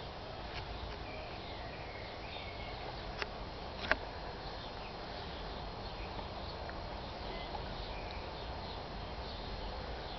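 Outdoor garden ambience: birds chirping over a steady low rumble, with two sharp clicks about three and four seconds in.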